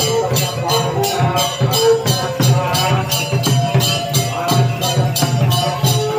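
Music: a fast, even percussion beat of about four strokes a second under a held melody line.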